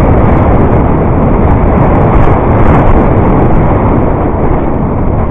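Loud, steady wind rush and rumble on the microphone of a camera on a mountain bike riding fast down a rough dirt trail.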